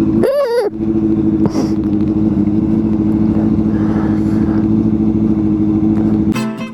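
Motorcycle running at a steady pitch with a low rumble of road and wind noise, and a brief wavering cry about half a second in. Guitar music starts near the end.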